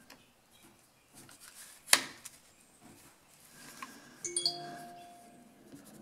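Small metal parts of a string trimmer's carburetor and throttle linkage being handled. There is one sharp click about two seconds in, then a brief metallic clink with a short ringing tone a little after four seconds.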